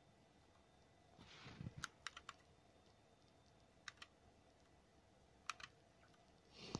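Near silence broken by a soft rustle and a few small clusters of faint, light clicks and taps: fingertips on a phone's glass screen and the rubber bands strapped around it to press the new screen into place.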